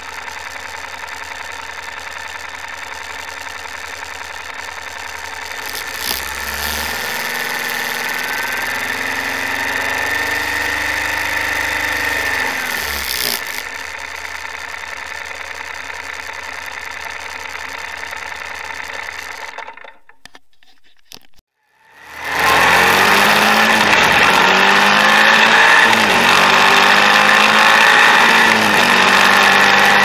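Moto Guzzi Griso 8V's transverse V-twin idling, with a 3 kΩ thermistor added to the intake air temperature sensor circuit; about six seconds in it is revved up, held for several seconds and dropped back to idle. The sound cuts out about twenty seconds in. It returns louder as the same engine, on its stock setting, is ridden along the road, revs rising and falling, with wind on the microphone.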